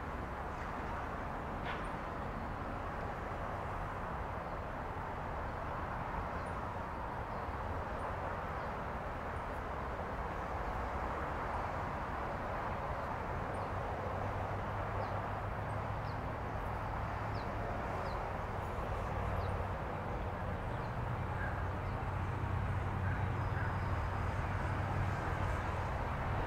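Diesel locomotive of a slow-moving freight train approaching, its low engine rumble growing steadily louder over the second half, with birds chirping faintly.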